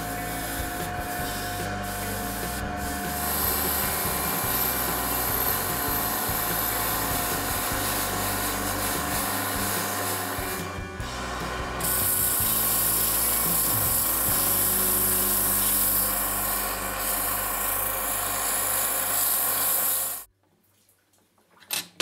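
Drill press motor running steadily while a cast part of an old hand drill is pressed against a spinning buffing wheel, a continuous rubbing, polishing noise over the motor's hum. About halfway through, after a brief dip, it grows louder as the drill's handle spins in the chuck and is rubbed with a cloth; the sound cuts off suddenly near the end, followed by a single click.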